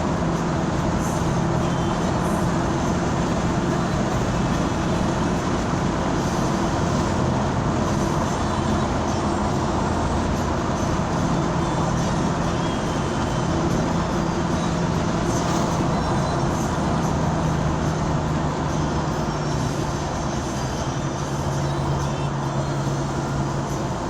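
Motor vehicle driving along a road: steady engine hum whose pitch shifts slightly as it goes, over continuous road rumble.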